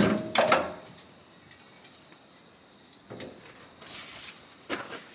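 Scraping and knocking of metal parts being handled: a short squeaky scrape at the start, then a few brief rustling scrapes after about three seconds.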